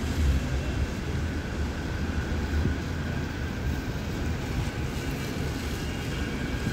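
Diesel double-decker buses running as they pull past close by, a steady deep engine rumble over city-centre traffic.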